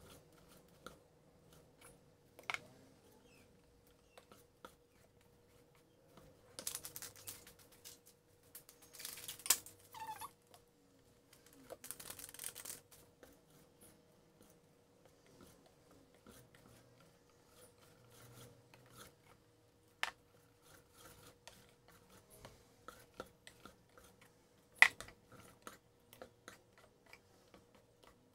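Wire balloon whisk beating batter in a stainless steel bowl, its tines clicking against the metal now and then. In the middle come a few seconds of crinkling and snipping as a plastic sachet of coconut milk powder is cut open with scissors and emptied in.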